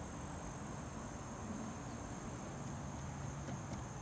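Steady high-pitched insect chorus, a continuous trill.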